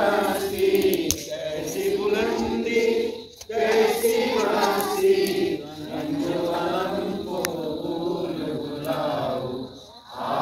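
A group of people singing together in long held lines, with short pauses for breath about three and a half seconds in and again near the end.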